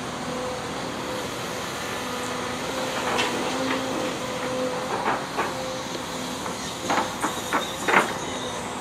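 Volvo wheeled excavator running with a steady hum while its hydraulic boom swings and lowers the bucket, with a run of metal clanks and knocks from about three seconds in, the loudest near the end as the bucket comes down to the ground.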